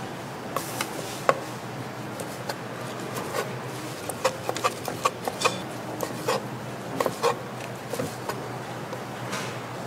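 Kitchen knife chopping steamed Korean blood sausage (sundae) on a wooden cutting board: irregular sharp knocks of the blade striking the board, coming thickest a few seconds in, over a steady background hiss.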